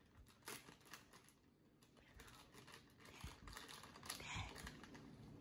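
Faint crinkling and small clicks of a folded paper packet being opened and handled, with scattered irregular ticks and rustles.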